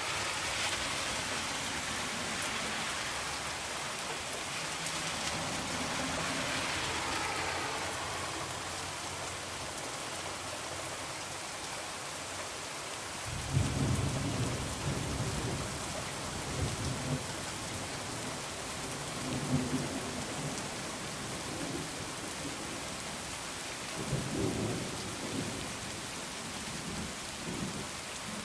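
Heavy rain falling steadily. About halfway through, thunder starts rumbling low and rolls on in several swells.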